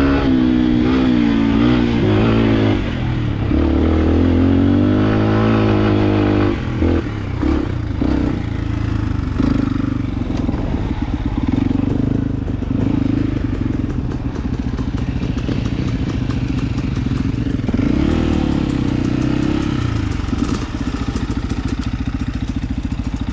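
Off-road enduro motorcycle engine revving up and down, with knocks and rattles from the bike over rough ground. It drops to a low, even beat near the end.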